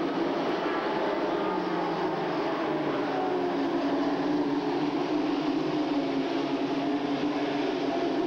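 A pack of V8 stock cars at racing speed: a steady, loud blend of engines, with several engine notes slowly drifting up and down in pitch as the cars pass.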